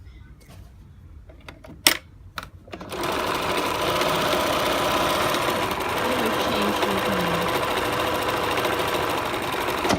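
Riccar Bernina 1230 electronic sewing machine, upgraded to a 1240, stitching a sequence of memorised letter stitches. Two sharp clicks about two seconds in, then the machine runs steadily for about seven seconds and stops.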